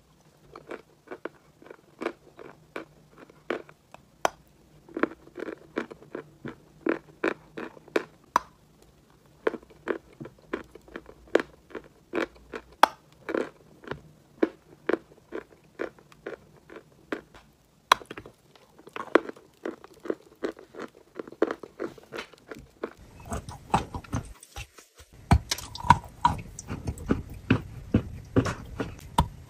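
Close-up crunching and chewing of a hard, brittle chalk-like mineral bar: sharp crunches a second or two apart as pieces are bitten off and ground between the teeth, with more crunches a second and a louder background hiss in the last few seconds.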